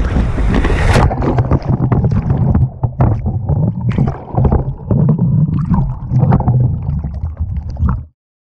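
Whitewater river rapids heard as the canoe capsizes and the camera goes under. It starts as a loud splashing of whitewater at the surface, and about a second in the sound turns muffled: the low churning and gurgling of turbulent water heard from below the surface, with scattered knocks. It cuts off suddenly near the end.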